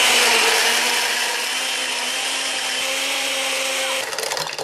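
Countertop blender running on its liquefy setting, blending fruit and ice cubes into a slushy: a loud, steady motor run that eases slightly after the first second, then winds down and stops near the end.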